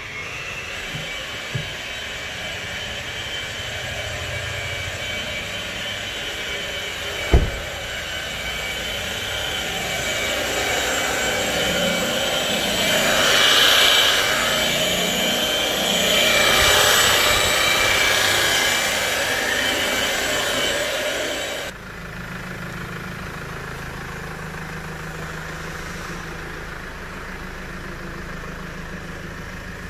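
Electric rotary polisher with a wool pad running against car paint: a steady motor whine that grows louder through the middle, with one sharp knock about a quarter of the way in. The whine cuts off abruptly about two-thirds through, leaving a quieter steady low hum.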